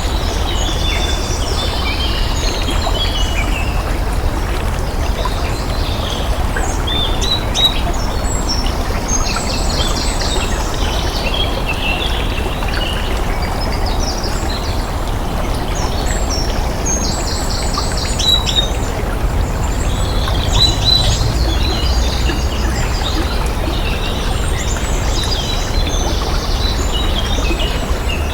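Running water with a steady rush, and small birds chirping and trilling over it in frequent short calls that thin out for a few seconds midway.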